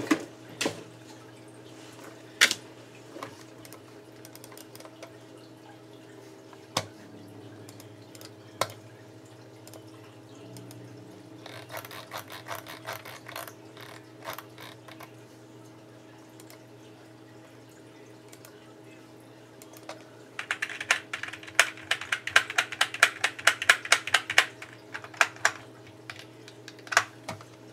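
Typing on a computer keyboard: scattered single clicks, a spell of rapid keystrokes about halfway through, and a longer, louder run of fast typing near the end, over a steady low hum.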